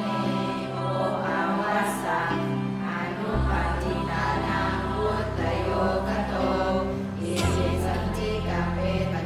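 Slow background music with choir-like voices over long held low notes that shift twice.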